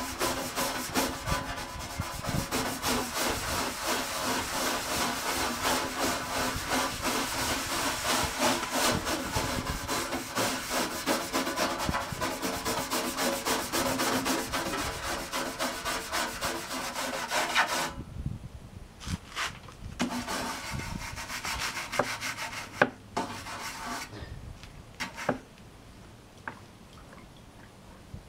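Rapid back-and-forth scrubbing on the dirty case of a 1991 Packard Bell Legend 386X computer, loosening caked-on grime. The scrubbing stops partway through, leaving a few scattered knocks and handling sounds.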